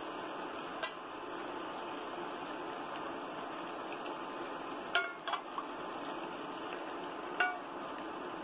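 Mushrooms and flour sizzling steadily in a frying pan as beef broth is ladled in from a saucepan, with a few sharp clinks of the metal ladle against the pot, about a second in, twice around five seconds in and again near the end.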